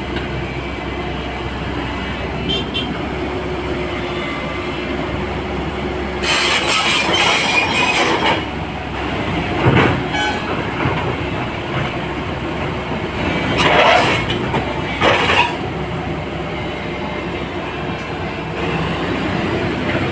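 JCB excavator running steadily, its diesel engine droning, with several loud bursts of harsh, squealing, hissing machine noise from the hydraulics and tracks: the longest lasts about two seconds, about six seconds in, with shorter ones about ten and fourteen seconds in.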